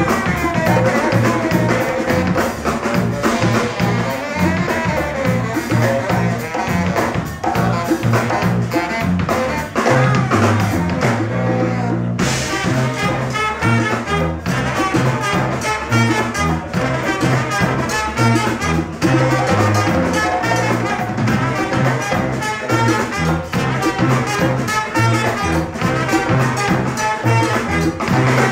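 Live brass band playing funky Latin jazz: trumpet, two saxophones, a sousaphone bass line, drum kit and a strapped bass drum. There is a brief break just before twelve seconds in, then the groove picks up again.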